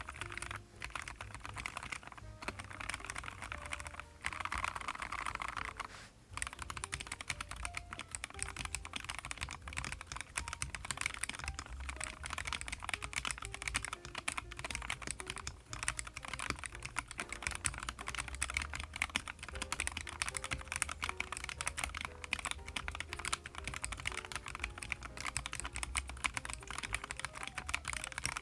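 Fast, continuous typing on a YUNZII X75 PRO gasket-mounted mechanical keyboard: dense key clacks with a few brief pauses early on.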